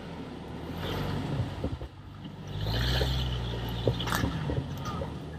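4x4's engine running at crawling speed, with a burst of throttle about two and a half seconds in, and scattered knocks and crunches of tires and chassis on rock.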